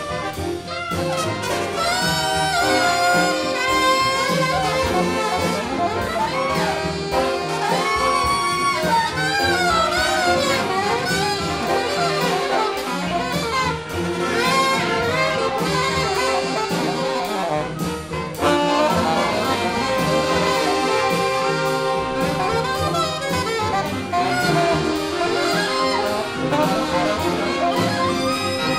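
Jazzy background music with brass instruments carrying the melody.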